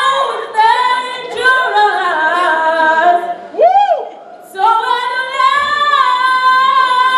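A boy singing solo into a handheld microphone in a high voice, sliding between notes in vocal runs, then holding one long note after a short break about four seconds in.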